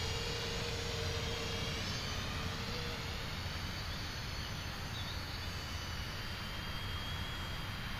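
Small electric quadcopter's motors and propellers buzzing in flight as it moves off over the trees, its whine fading about two seconds in, over a steady low noise.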